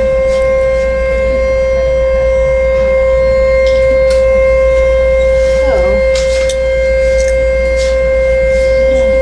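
Sentry 3V8H-B outdoor warning siren sounding a steady tone, holding one pitch with overtones and no rise or fall.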